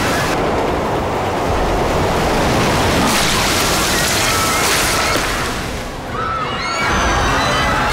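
Film sound-effects mix of loud, steady rushing and surging floodwater, with music under it. The din dips briefly about six seconds in.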